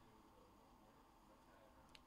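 Near silence: faint room tone, with one faint click near the end.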